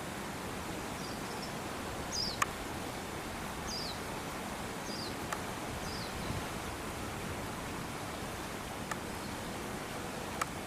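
Steady outdoor background noise with a small bird giving four short, high chirps that fall in pitch, about a second apart, in the first part. A few faint sharp clicks are scattered through.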